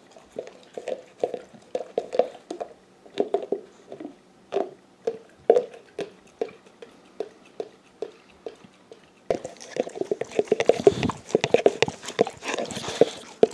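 A bulldog licking and smacking at the inside of a plastic peanut butter jar: an irregular run of short wet licks, several a second. The licking becomes suddenly louder and closer about nine seconds in.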